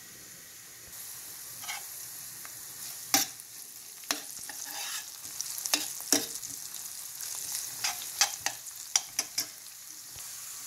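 Ground spices and water sizzling in a pan while a spoon stirs them, with a dozen or so sharp scrapes and knocks of the spoon against the pan. The sizzle steps up about a second in.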